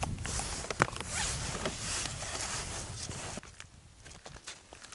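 Close scraping and rustling handling noise with many sharp clicks, dropping off after about three and a half seconds to a few faint clicks.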